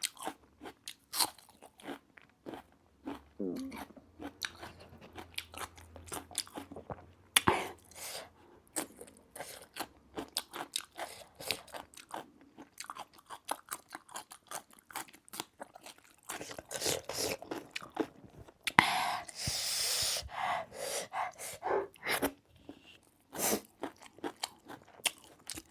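Close-up crunching and chewing of gilo chatpate, a spiced puffed-rice snack, in many short, sharp crunches, with a louder rushing noise lasting about a second and a half about three-quarters of the way in.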